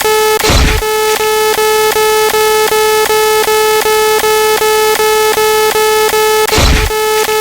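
Counter sound effect: a buzzy electronic tone pulsing about four times a second, one blip per count. Two louder noisy thumps with a deep low end cut in, about half a second in and again near the end.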